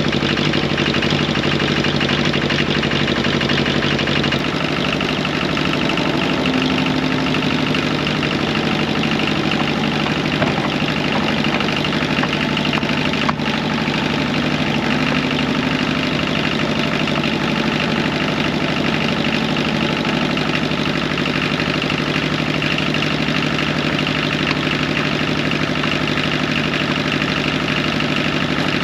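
Excavator and old backhoe tractor diesel engines running steadily together while the excavator pulls the tractor out on a strap. The engine note shifts slightly about four seconds in.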